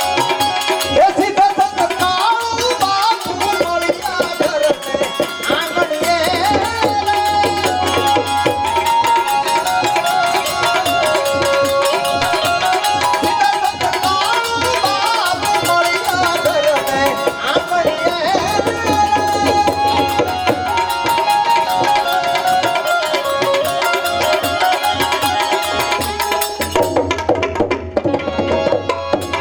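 Instrumental passage of Gujarati santvani bhajan music: tabla drumming with a wavering melody instrument playing over it.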